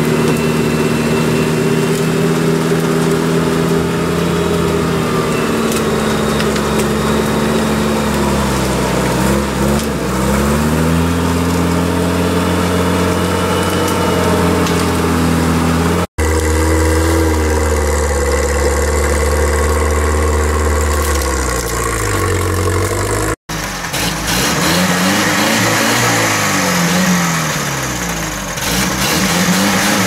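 UAZ-469 off-road vehicle engines revving up and down over and over, holding a steady note between the revs. The sound drops out suddenly twice, about halfway through and again about two thirds of the way in.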